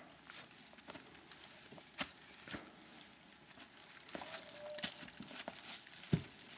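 Faint scattered scuffs and knocks of boots and hands on rock and tree roots as a hiker scrambles up a limestone boulder.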